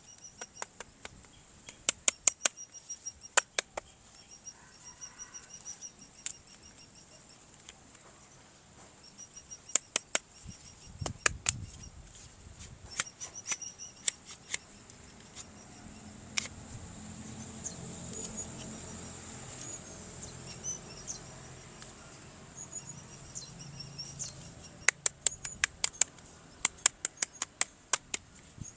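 Sharp clicks and taps in quick clusters, with faint high chirping in the background.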